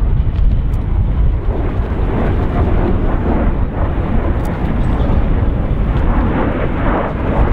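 Jet noise from a Saab 37 Viggen's Volvo RM8 turbofan as the fighter flies its display: a loud, steady rumble.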